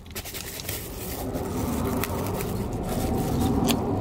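Packaging being unwrapped from a boxed car part: continuous scraping and rustling that grows a little louder after the first second, with a few light clicks near the end.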